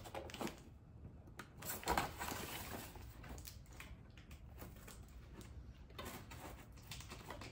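A knife blade slitting packing tape on a cardboard box: faint, scattered scraping and cardboard rustling with a few light taps, the loudest about two seconds in.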